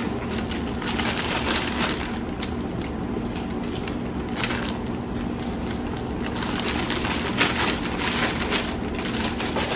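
Plastic packaging crinkling and rustling in irregular bursts as the kit contents are handled and packed away.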